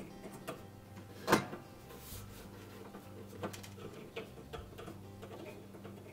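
Needle-nose pliers clicking and tapping against the metal mounting tabs and slotted steel bracket of a range's radiant element while the tabs are squeezed through the slot. There is one sharp metallic click about a second in and a few lighter clicks later.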